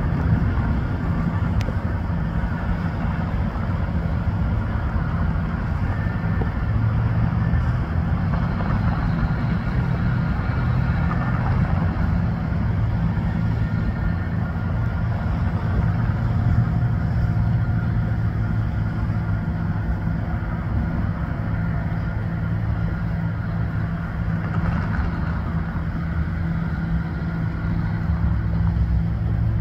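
Steady low hum of an idling motor vehicle engine amid road traffic, with a car driving across the crossing near the end.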